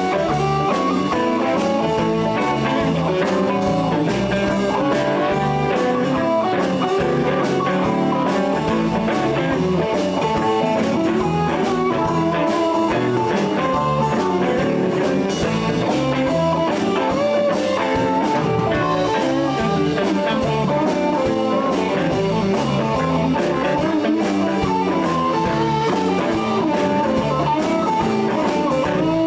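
Live blues band playing an instrumental passage: guitar taking the lead over bass and a drum kit.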